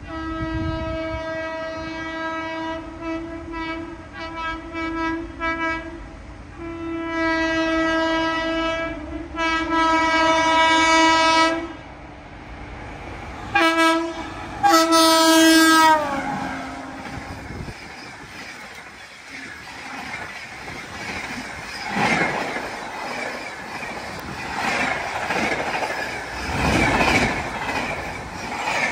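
Locomotive horn of a superfast express train sounding as it approaches at speed: a string of blasts, one long blast, then two short ones whose pitch falls as the locomotive passes. Then the coaches rush past, their wheels clattering over the rail joints.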